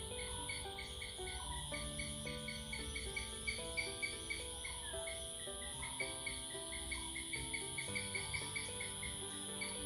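Crickets chirping in a steady rhythm of about five chirps a second, over a continuous high insect drone. Soft music of long held notes plays underneath.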